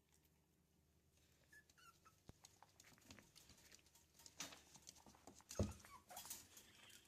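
Yorkshire Terrier puppies playing: faint whimpers and squeaks among scuffling and clicking, with a single thump a little past halfway.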